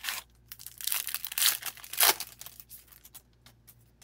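Foil wrapper of an O-Pee-Chee Platinum hockey card pack torn open and crinkled in a run of noisy rustles, loudest about two seconds in, followed by light clicks as the cards are handled.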